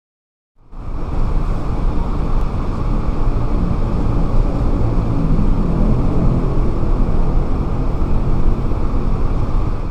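Road traffic noise: vehicle engines running close by, a steady dense rumble that starts about half a second in.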